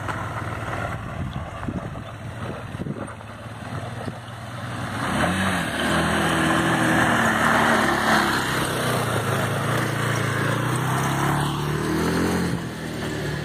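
An ATV (quad bike) engine revving up and down as it rides a dirt track. It grows louder as it passes close by about halfway through, then gets fainter as it moves away.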